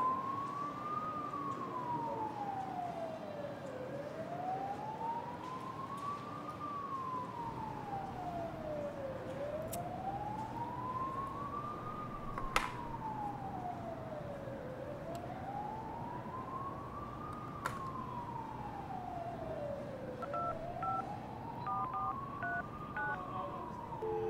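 A siren wailing in slow rising and falling cycles, about five and a half seconds each, with a sharp click about halfway. Near the end a push-button telephone's keypad tones beep several times as a number is dialed.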